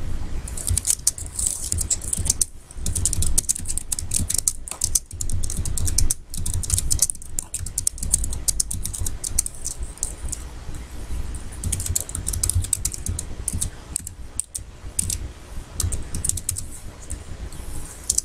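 Computer keyboard being typed on: quick runs of key clicks broken by short pauses.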